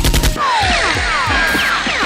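Gunfight sound effects: a rapid burst of automatic gunfire cuts off about a third of a second in, followed by a dense volley of falling, zapping shots with low thuds, like sci-fi blaster fire.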